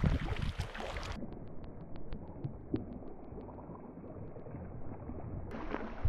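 Water washing and lapping against a kayak hull as it is paddled, with wind on the microphone, stronger in the first second and again near the end. A run of quick light ticks, about six a second, sounds over the middle.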